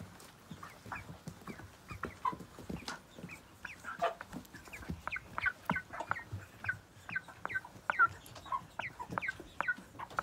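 A group of broiler chickens clucking close up, with many short calls, several a second, coming thicker after the first few seconds.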